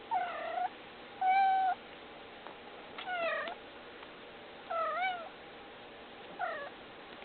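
Domestic cat meowing five times, each call about half a second long with a pause of one to two seconds between them; the second call holds a steady pitch while the others bend up and down.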